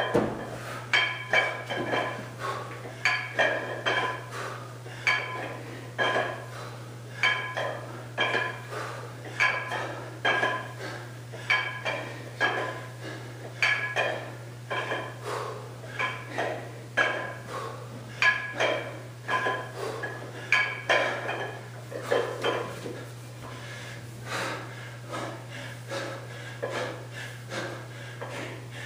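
Iron plates of a plate-loaded dumbbell clinking in a steady rhythm, about once a second, as it is swung overhead in kettlebell-style swings. The clinks grow weaker near the end. A steady low hum runs underneath.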